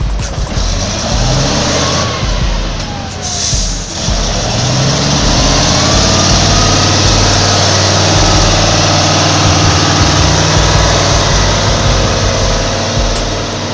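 Heavy truck engine running loudly, settling into a steady drone about four seconds in.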